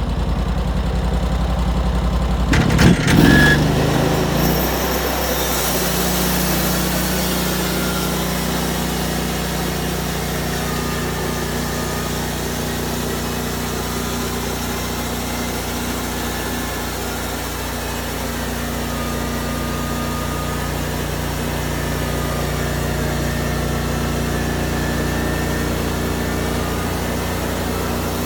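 An engine running steadily. About three seconds in there is a brief clatter, and the engine picks up to a higher steady speed, which it holds.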